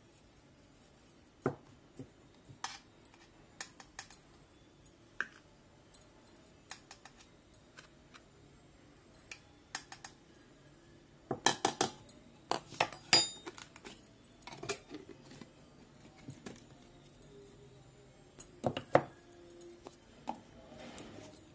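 Scattered clinks and clicks of a spoon against a metal tin of baby cereal and of plastic food containers being handled, with a busier run of louder clinks about halfway through and two more near the end.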